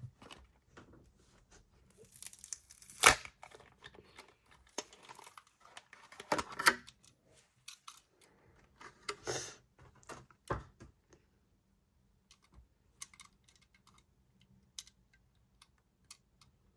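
A Hot Wheels card-and-plastic blister package being torn open by hand: irregular ripping and crinkling, with the loudest rips about three seconds and six and a half seconds in. In the last few seconds there are only scattered small clicks and taps.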